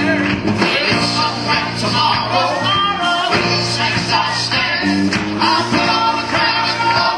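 Live gospel band playing an upbeat instrumental passage, with steady bass notes under a regular drum beat.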